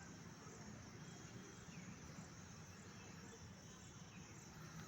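Near silence, with faint insect chirping: a high-pitched pulse repeating about twice a second over a low steady hum.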